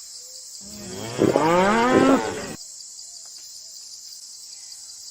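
A cow mooing once, one drawn-out call of about two seconds, over a steady high hiss.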